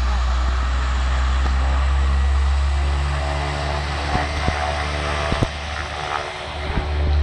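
DHC-6 Twin Otter's twin turboprop engines running at high power on the takeoff roll: a loud, steady propeller drone over a heavy low rumble. From about three seconds in, a set of steady humming tones stands out of the noise.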